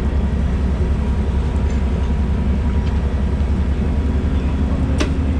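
Steady low rumble of an engine running at idle, with one sharp click about five seconds in.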